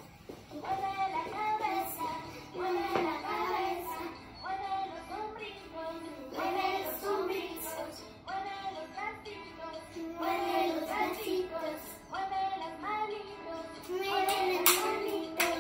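Children's song with a child's singing voice over instrumental music, in repeating sung phrases. One sharp hand clap near the end.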